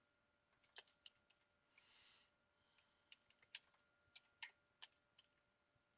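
Faint computer keyboard keystrokes: about a dozen irregular clicks.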